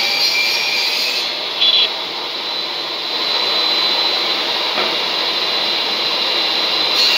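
Steady stadium crowd noise from a football match, with one short, sharp blast of a referee's whistle about two seconds in, before a free kick.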